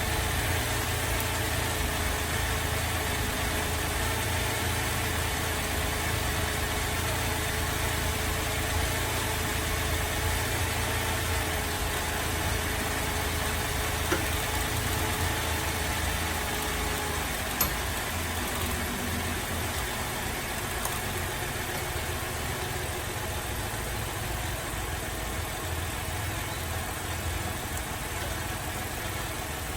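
Holden Alloytec V6 idling rough with a misfire while its ignition coils are unplugged one at a time to find the bad cylinder. Two short sharp clicks come a few seconds apart around the middle.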